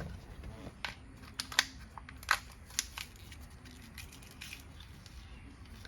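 Sparse sharp little clicks and taps of small parts being handled while a car's turn signal switch is reassembled with new springs.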